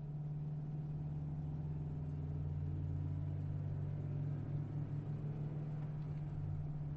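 Steady low engine and road drone of a car being driven, holding level after fading in from silence.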